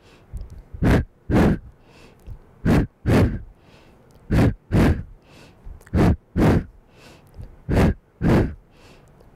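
A woman's short, forceful breaths in pairs, five pairs about every second and a half to two seconds. Each pair matches the two pulsing tugs of a Pilates single straight leg stretch.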